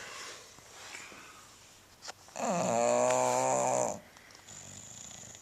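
Bulldog snoring: soft breathing, then one loud, steady, pitched snore lasting about a second and a half, starting about two seconds in, then soft breathing again.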